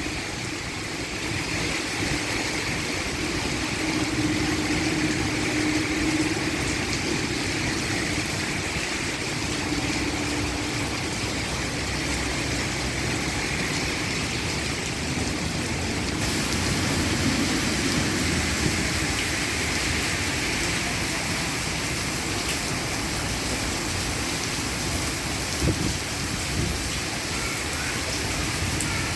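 Heavy downpour: steady, dense rain drumming on a roof, with runoff pouring off the eaves.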